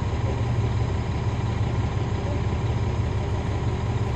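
Caterpillar C13 ACERT diesel engine of a NABI 416 (40-SFW) transit bus running steadily as a low, even drone, heard from inside at the rear of the bus.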